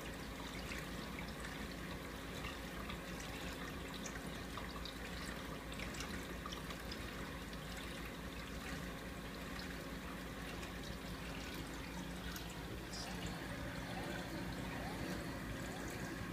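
Steady trickle and splash of water circulating through a 90-gallon reef aquarium and its sump, with a steady low hum underneath.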